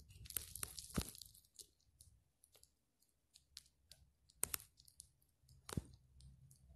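Scattered sharp clicks and taps with a light rustle, a cluster in the first second and single louder taps about a second in, at about four and a half seconds and near six seconds: a phone being handled and its screen tapped close to its own microphone.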